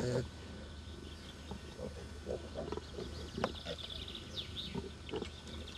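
A litter of piglets grunting softly in short, irregular snatches as they huddle together to rest, over a low steady hum.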